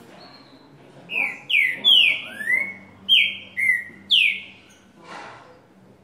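A green-winged saltator (trinca-ferro) singing one phrase of about six loud, clear whistled notes, most of them sliding down in pitch. The phrase starts about a second in and ends after about four and a half seconds.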